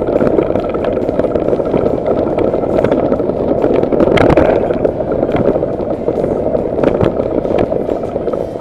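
Wind buffeting the microphone and the rattle of a bicycle speeding down a rough forest trail, with sharp knocks as the wheels hit bumps, the loudest about four seconds in.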